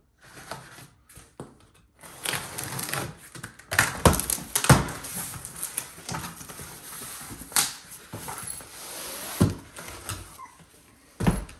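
A cardboard box being cut open and unpacked: a box cutter slitting the packing tape, then cardboard flaps pulled open and a padded case dragged out, with rustling and several sharp knocks of cardboard and case against each other.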